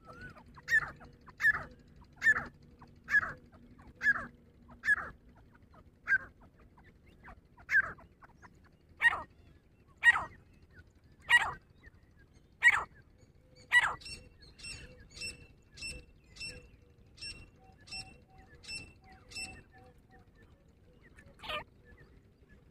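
Grey francolin calling: a series of loud, sharp, repeated notes, about one a second. Partway through, these give way to a softer run of short, evenly spaced high notes, and one more loud call comes near the end.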